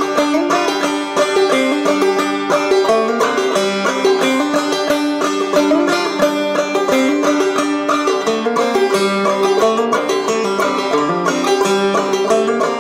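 Banjo music: a rapid run of picked banjo notes in a steady, lively tune.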